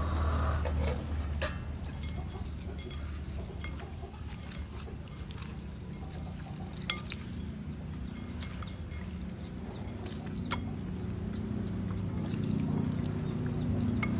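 A hand rubbing and turning raw fish steaks with salt and sugar in a ceramic bowl, with three sharp clinks against the bowl, over a low steady background rumble.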